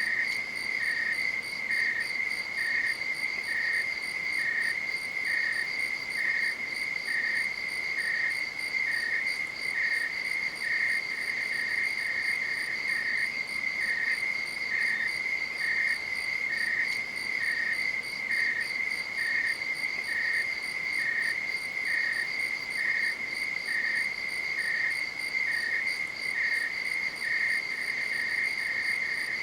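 Night insects trilling without a break, with a second chirp just below the trill repeating about once a second.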